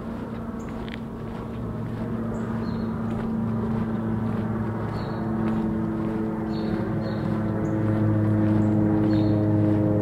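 A motor's low steady drone grows gradually louder as it approaches, without changing pitch.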